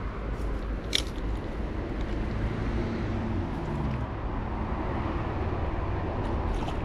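Steady low rumble of background city traffic, with one sharp click about a second in.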